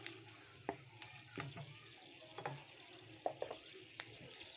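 Whole spices frying in a little oil in a metal kadai, a faint sizzle, while a wooden spatula stirs them, knocking and scraping against the pan about half a dozen times.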